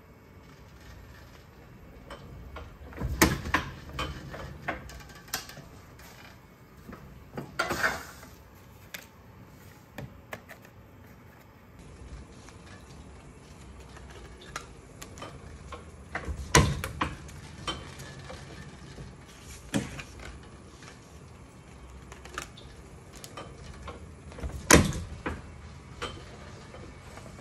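Irregular metal clanks and knocks from a platen letterpress being handled, with small clicks in between.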